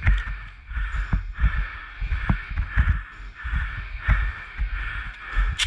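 Footsteps and gear rustling, picked up by a body-worn camera while walking: dull low thumps about twice a second, each with a light scuff.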